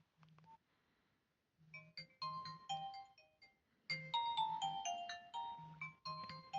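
Nokia 106 phone ringtone: after a short near-silent pause, a quick melody of short chiming notes starts about two seconds in, breaks briefly, and picks up again.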